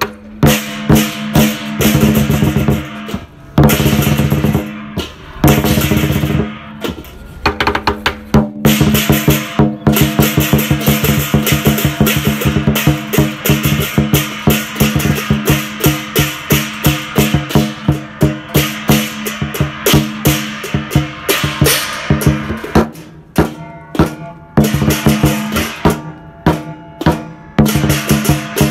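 A Chinese lion-dance drum beaten with wooden sticks in fast, driving strikes and rolls, with brass hand cymbals crashing along in time. The beating breaks off briefly a few times.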